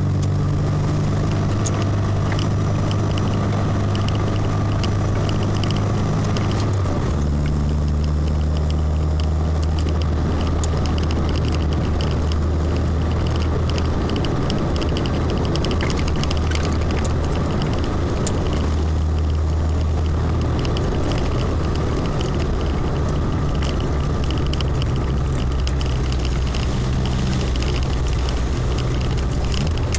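A vehicle's engine running on the move, with a steady rush of wind and tyre noise on the wet road. The engine's pitch steps down about seven seconds in and shifts again near the twenty-second mark.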